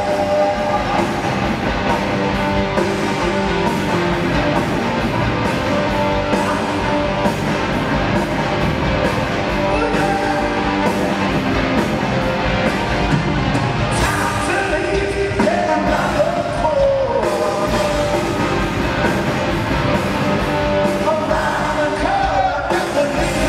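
Live hard rock band playing at full volume, with a lead vocal over electric bass, guitars and drums.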